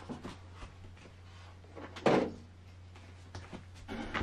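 Kit packaging being handled: a single short knock about two seconds in, then plastic parts bags starting to crinkle near the end.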